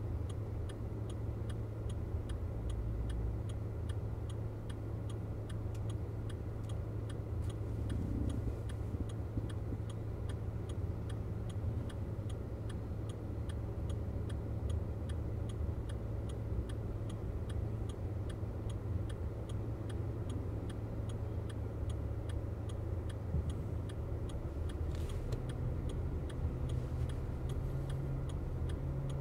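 Volkswagen Vento TSI's turbo petrol engine idling at a standstill, heard from inside the cabin as a steady low hum. Over it comes a regular ticking about twice a second from the turn-signal indicator.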